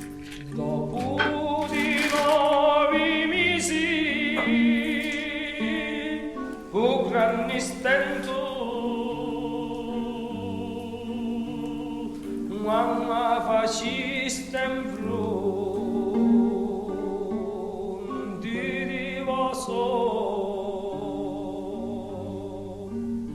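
Background music: a solo voice singing in an operatic style with wide vibrato over a sustained instrumental accompaniment, in several long phrases.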